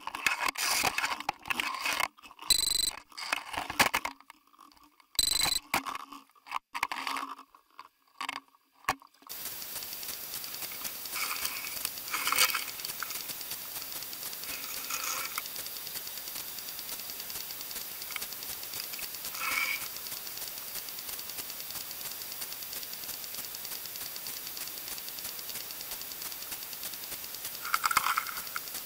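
Underwater fishing camera being knocked and scraped as a sturgeon jostles it: irregular scraping and clattering for about nine seconds. Then a steady hiss with a few faint knocks.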